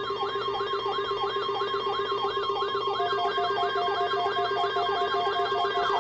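Electronic siren alarm: a wailing tone sweeps up and down about twice a second over a steady low tone. About halfway through, a faster yelping siren and a pulsing beep join in, layered on top.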